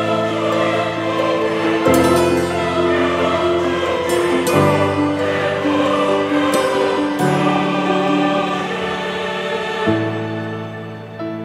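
Background music of slow, sustained chords that change every two to three seconds.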